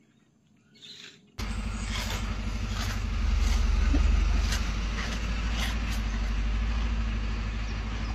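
Near quiet at first, then about a second and a half in a loud, low, steady rumble starts suddenly. A few faint crisp crunches sound over it as a gorilla chews cabbage leaves close to the microphone.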